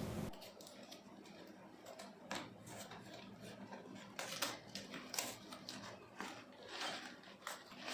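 Faint, scattered rustling, crinkling and scraping of a cardboard delivery box and its packaging being opened and handled by hand.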